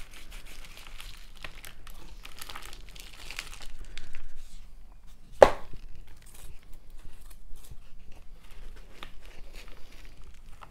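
Hands working potting soil, a mix of orchid mix and all-purpose potting mix, into a terracotta pot around a plant and a plastic moss pole: crumbly rustling and crinkling, with one sharp click about halfway through.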